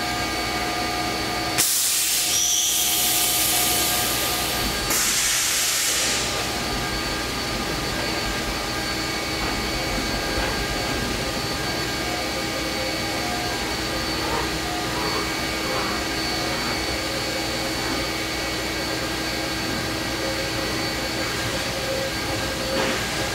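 Fadal VMC4020HT CNC vertical machining center powered up, giving a steady hum with several constant tones while its axes are jogged by handwheel. There are two loud bursts of hiss, one of about three seconds starting near two seconds in and a shorter one near five seconds.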